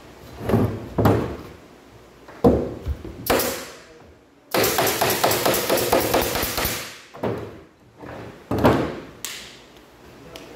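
A long tape measure handled on a plywood panel: a few knocks and clatters, then a rattling whirr of about three seconds in the middle as the tape blade runs, and another knock near the end.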